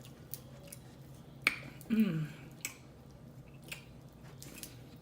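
Close-up eating sounds from a seafood boil: sharp wet mouth smacks and chewing clicks, about one every second. About two seconds in there is a short falling "mmm" of enjoyment.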